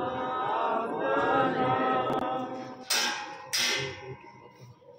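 A Sikh congregation chanting a hymn together, many voices in unison. About three seconds in the chanting gives way to two sudden loud bursts of noise half a second apart, each dying away, and then it goes quiet.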